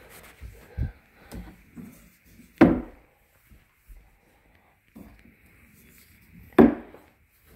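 Wooden knocks and bumps from a Murphy bed frame and cabinet being unlatched and handled: two sharp knocks about four seconds apart, with a dull thump and softer bumps between.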